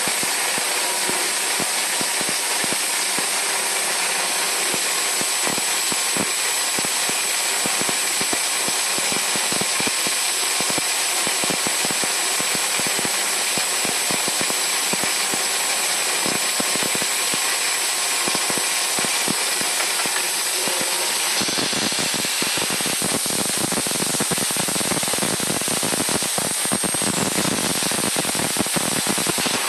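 Star SR20 sliding-head CNC lathe running while it cuts a brass banjo fitting: a steady mechanical hiss with a faint high whine and many small clicks. About three-quarters of the way through, a lower rumble joins in.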